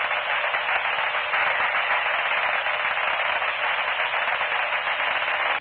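Steady static hiss, the sound of a broadcast gone to dead air, cutting off suddenly near the end.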